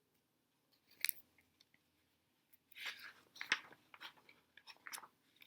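Pages of a paper picture book being turned: short rustling, crinkling bursts about a second in and again from about three seconds on.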